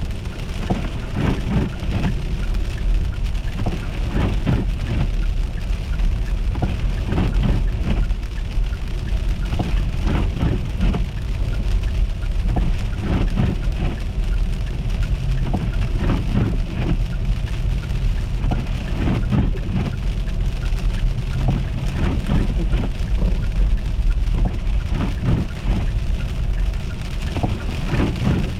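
Car driving on an icy, slushy road: a steady rumble with irregular crackling and crunching.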